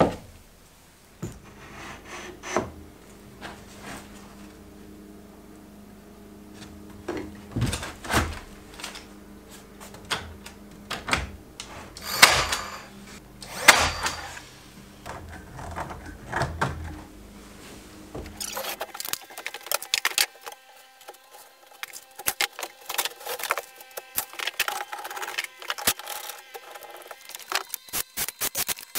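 Workshop handling sounds: irregular knocks and clicks of plywood boards being set in place and clamped, over a steady low hum. About two-thirds of the way through the hum stops and a quick run of light clicks takes over.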